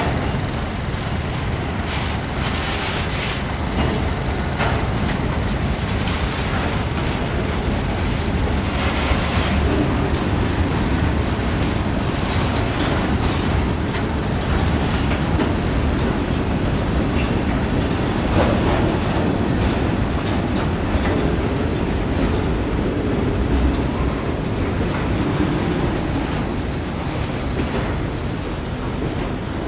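Mixed freight train of covered hoppers and boxcars rolling past close by: a steady rumble of steel wheels on rail, with a few sharp clacks as wheels cross rail joints.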